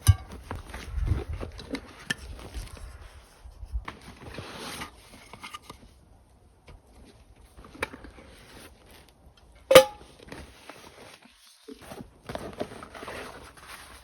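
Camp gear being handled: rustling and scattered small knocks, with one sharp metallic clink that rings briefly about ten seconds in.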